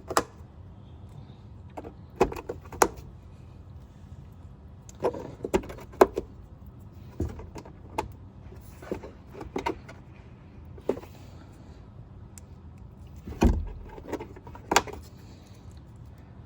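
Irregular clicks, taps and knocks of plastic trim parts and fasteners being handled and fitted back into place by hand, with a louder knock around the middle and another about three-quarters of the way through.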